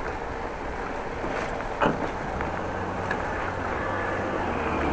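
Wind on the microphone and the rolling noise of a bicycle on brick paving, picked up by a chest-mounted action camera, with one sharp knock about two seconds in and a low steady rumble joining from about halfway.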